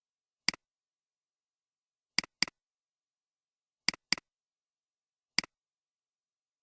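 Computer mouse button clicks: a single click, two quick pairs of clicks, then one more single click, with dead silence between.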